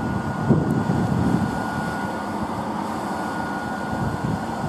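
Electric train standing at a platform with its onboard equipment running: a steady hum with a thin, steady high whine, over irregular low rumbling.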